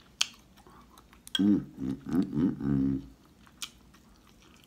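A man eating with his mouth full, humming a few wordless "mmm" sounds of enjoyment in the middle, between sharp mouth clicks and chewing.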